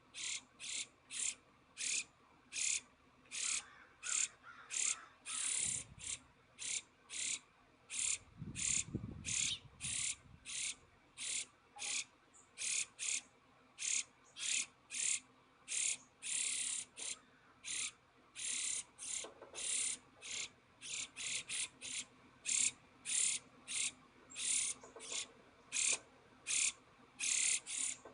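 An insect calling in an even, steady rhythm: short, high, buzzy chirps at about two a second.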